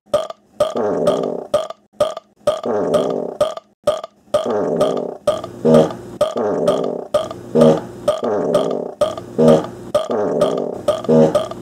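Recorded burps edited into a looping rhythm, with a long burp about every two seconds and short clipped hits in between. About five seconds in, a low steady hum and a heavier thud every couple of seconds join the loop.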